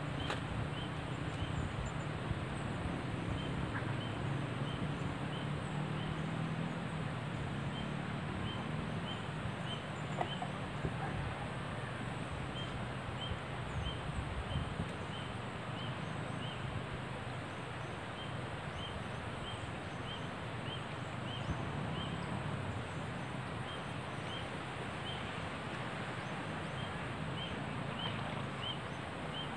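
Steady outdoor background noise with a short high chirp repeated in runs of several notes, about two or three a second, with pauses between the runs; a low rumble sits underneath for the first several seconds.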